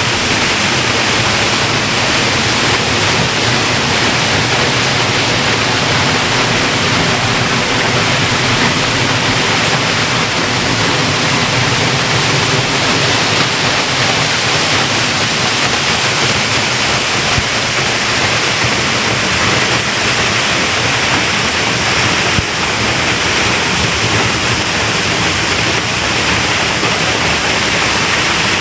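Eas Mor waterfall in spate after torrential overnight rain: a loud, steady rush of falling water.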